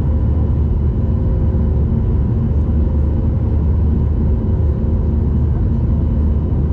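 Boeing 737 jet noise: a loud, steady deep rumble with faint steady tones over it, unchanging throughout.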